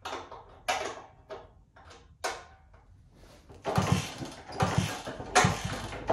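1964 Honda 50 Super Cub's small four-stroke single being kicked over without firing. A few clicks and clanks come first, then, from about four seconds in, rhythmic low pulses of the engine turning over. The owner suspects the ignition isn't switched on.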